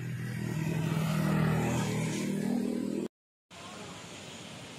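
A motor vehicle's engine passing on the road, growing louder over about three seconds, then cut off abruptly; quieter outdoor background noise follows.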